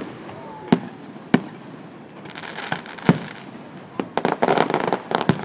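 Fireworks going off: separate sharp bangs, and two runs of rapid crackling, one near the middle and a denser one near the end.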